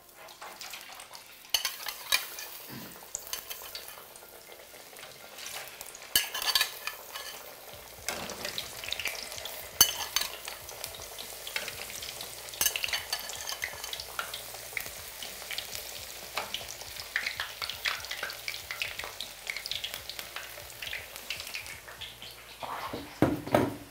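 Potato pieces shallow-frying in hot oil in a frying pan, the oil sizzling and crackling steadily, louder from about eight seconds in. There is a short louder clatter near the end.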